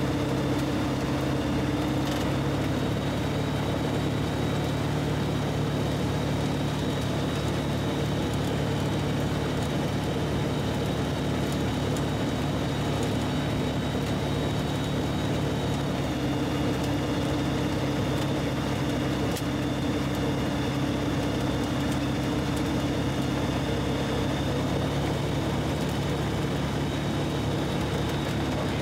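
Light aircraft's engine and propeller droning steadily in flight, a constant low hum with a slight change in pitch about halfway through.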